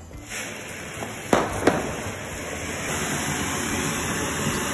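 Ground spark-fountain firework lit and catching: a fizzing hiss starts almost at once, two sharp cracks come about a second and a half in, and the hiss grows louder about three seconds in and holds steady as the fountain sprays its sparks.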